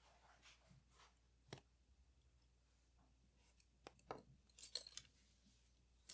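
Faint, scattered clicks and light metallic ticks of small tools and parts being handled while a Leica IIIF camera is taken apart: one sharp click about a second and a half in, then a cluster of quick ticks a little past the middle.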